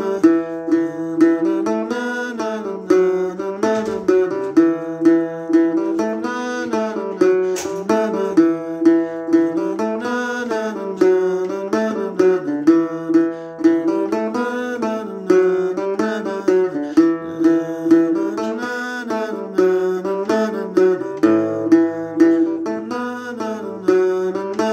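Acoustic guitar in standard tuning, picked in E dorian with a steady rhythm, under a wordless sung melody that rises and falls in long arching phrases.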